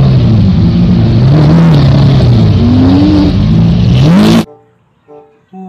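Lamborghini Aventador V12 engine revving loudly, its pitch swinging up and down with two climbs, then stopping abruptly about four and a half seconds in.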